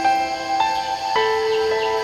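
Calm background music with held plucked-string notes changing about once a second.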